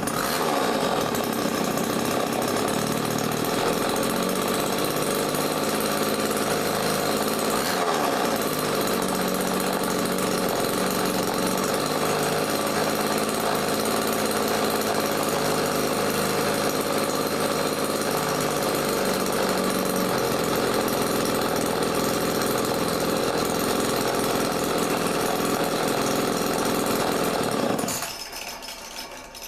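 Old Homelite chainsaw's two-stroke engine, freshly rebuilt, catching and running steadily for nearly half a minute, then shutting off near the end.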